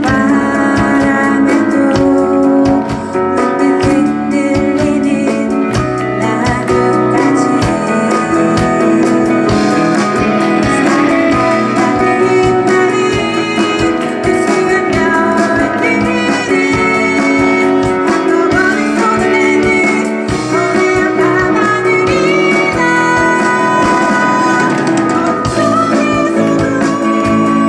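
Live band playing amplified music: a woman singing over electric guitars, bass guitar, keyboard and drum kit.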